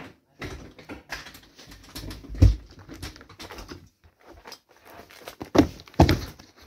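Hard plastic cups clattering as they are handled and set down on a wooden floor, with one heavy thump partway through. Near the end a shoe stomps down on a plastic cup: two loud hits about half a second apart.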